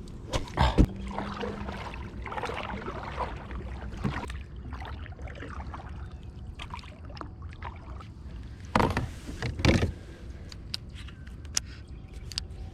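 Kayak being handled on the water: knocks and scrapes of the hull and paddle, with loud bursts about half a second in and again around nine to ten seconds in, and a few sharp clicks near the end.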